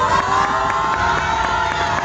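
A group of young people cheering and shrieking together in high voices.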